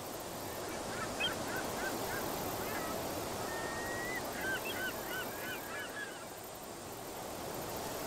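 A flock of geese honking in quick runs of short calls, one run about a second in and a denser one around four to six seconds in, over a steady background hiss.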